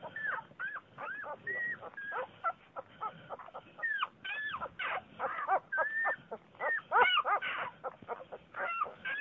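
Young Vizsla puppies squeaking and whimpering: a quick, overlapping run of short, high cries, a few every second, each rising and falling in pitch.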